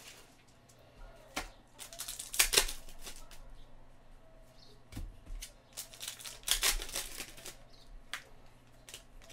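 A foil trading-card pack being torn open and its wrapper crinkled while the cards are handled. The rustling comes in two louder spells, about two and a half and about seven seconds in.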